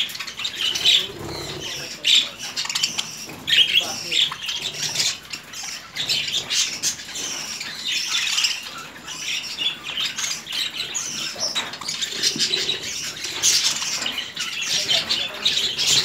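A flock of budgerigars chattering without a break: fast, overlapping warbles, chirps and squawks.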